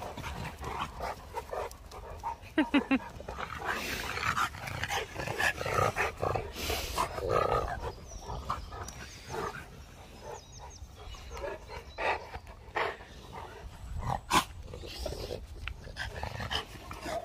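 Dogue de Bordeaux dogs panting, snuffling and grunting as they play over a toy, with one sharp knock about 14 seconds in.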